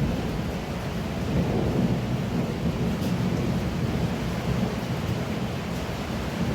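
Heavy rain pouring down steadily, a dense even wash of sound with a deep low rumble under it.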